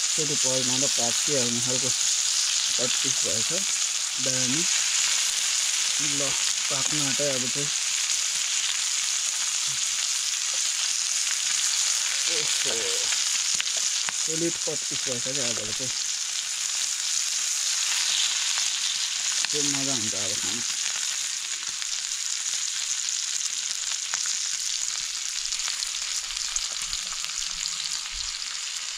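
Thin-cut pork slices sizzling steadily in a hot flat pan over a wood fire, a continuous frying hiss.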